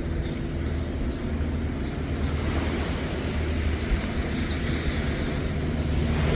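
Sea waves washing on the beach, with wind buffeting the microphone and a low, steady engine hum underneath. A couple of faint, short bird chirps.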